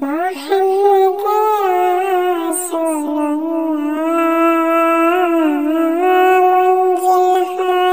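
A cat-like voice singing a sholawat melody in long held notes that bend and waver, with a few short breaks.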